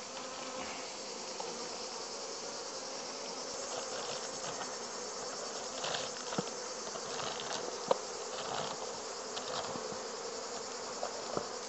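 Honeybees of a strong colony buzzing steadily around the opened nucleus hive. A few light clicks as the hive tool works the comb-covered wooden partition.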